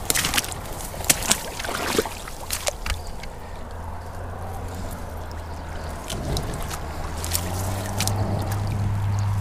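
Footsteps and rustling through bank grass with a few sharp knocks, then a steady low hum that grows louder over the last few seconds.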